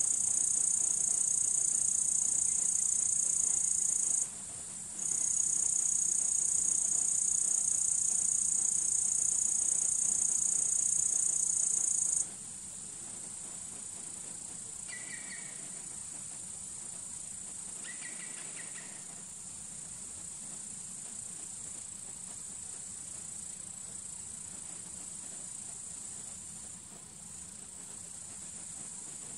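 A steady, shrill, high-pitched chorus of outdoor insects. It is loud for the first twelve seconds, with a brief break about four seconds in, then drops to a quieter chorus that carries on. Two short chirps are heard in the middle.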